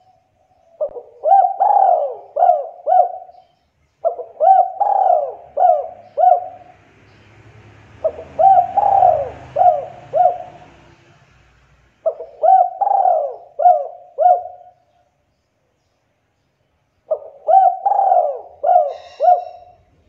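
Spotted dove cooing: five phrases, each a few quick rising-and-falling coos, coming about every four seconds with a longer pause before the last.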